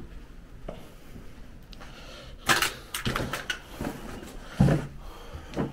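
A handful of sharp knocks and thumps in a small room, the heaviest one about four and a half seconds in.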